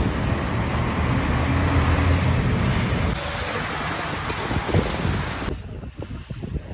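Motorcycle and scooter engines running amid street traffic. The sound drops abruptly about three seconds in and again near the end, leaving a quieter street background.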